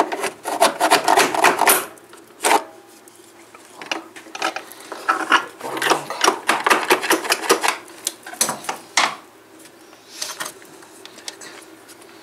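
Plastic housing of a Mercedes W123 heater box being handled and fitted together: bursts of rapid clicking and scraping, plastic rubbing on plastic, repeated several times.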